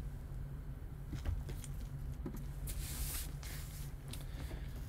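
Faint steady low hum with a few light clicks and a brief soft rustle about three seconds in.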